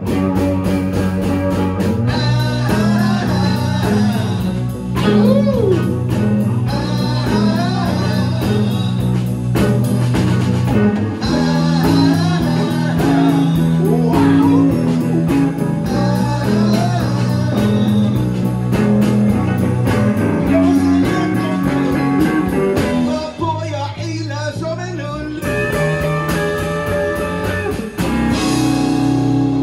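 Live blues band playing: electric guitar, electric bass, drums and keyboard, with a man singing into a microphone. The bass drops out briefly about 23 seconds in.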